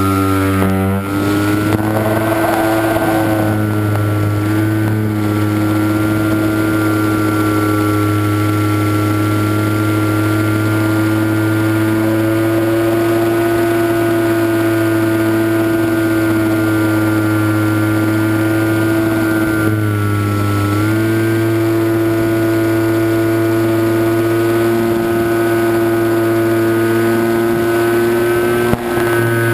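Motor and propeller of a radio-controlled flying wing, heard from a camera on board: a steady drone whose pitch falls in the first second, holds, then dips briefly about 20 seconds in and comes back up as the throttle changes.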